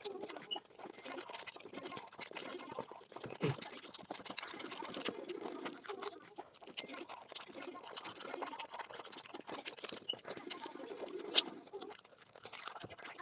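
Close-up eating sounds: chewing with a steady run of small wet clicks and crunches, and one sharper click about eleven seconds in.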